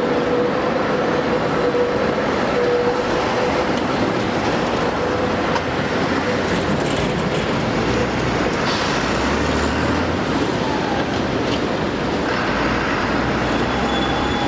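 Tatra KT4 articulated tram running along the street rails and away. A steady tone sounds for about the first half of its run. Then general city traffic noise, with a low engine rumble about two-thirds of the way through.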